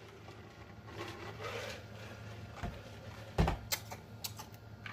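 A man drinking from a large glass mug, with soft gulping and swallowing. About three and a half seconds in there is a single knock, then a few small lip smacks.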